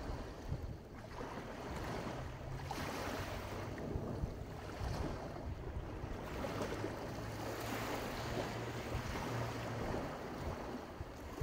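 Black Sea waves washing onto the beach, swelling and easing every few seconds, with wind buffeting the microphone and a faint low steady hum underneath.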